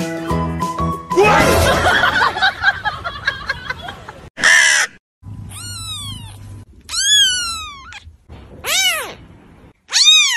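Light background music that stops about a second in, then a few seconds of noisy cries and a short loud squeal, then a young white kitten meowing four times, each high meow rising and then falling in pitch.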